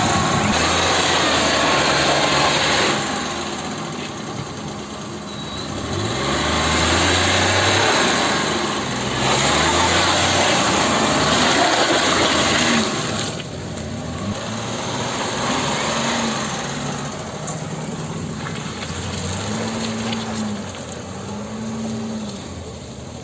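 Maruti car engine running under load and revving up and down several times, over a steady rushing noise.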